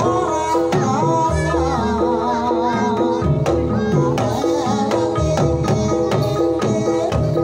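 Live Banyumasan gamelan playing a tayub gending. A kendang drum beats out patterns under ringing metallophones, and a sinden's wavering sung melody runs over the top.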